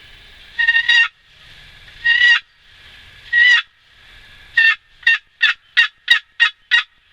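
Hen-style turkey yelps: three drawn-out notes about a second and a half apart, then a quick run of seven short, sharp yelps.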